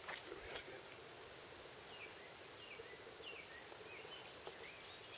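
Two sharp clicks at the start, then a small bird calling a steady run of short, falling chirps over a faint background.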